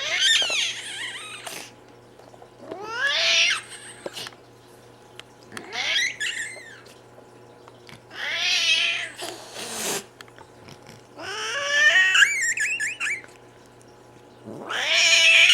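A domestic cat making repeated squeaky, wavering cries, about six in all, each lasting a second or so, with short hisses between some of them.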